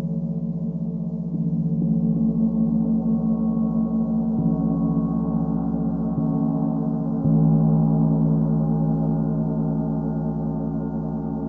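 38-inch Paiste Symphonic gong ringing with a dense, low, sustained wash of tones. It is struck softly again several times, so the sound keeps swelling, loudest about seven seconds in.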